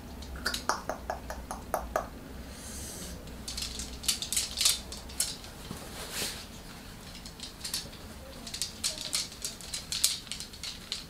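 Light clicking and clinking of small hard objects handled on a desk, in irregular runs of quick ticks, with a brief rustle, over a low steady hum.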